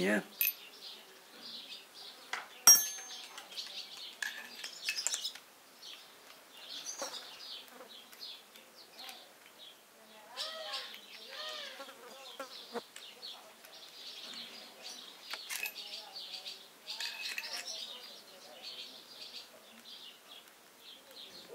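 Birds chirping in the background, with occasional sharp metallic clicks and taps from small parts and a screwdriver being handled. The loudest click comes nearly three seconds in.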